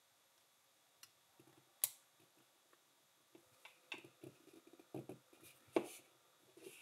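LEGO plastic pieces being handled and pressed together: scattered sharp clicks, the loudest about two seconds in and just before six seconds, with soft handling sounds between.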